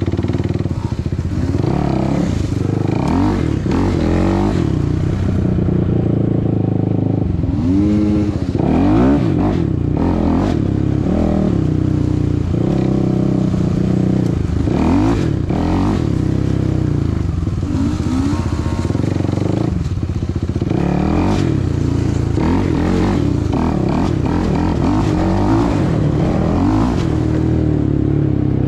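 Suzuki LTR 450 sport quad's single-cylinder four-stroke engine revving up and down over and over as it rides a rough dirt trail, with knocks and rattles from the bumps.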